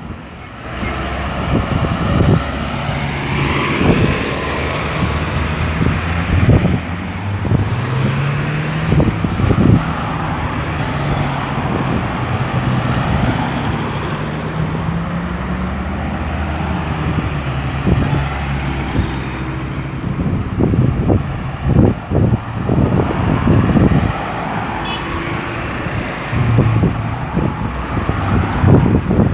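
Steady road traffic: cars, trucks and buses passing, with engine notes climbing and falling in pitch as vehicles pull away and go by.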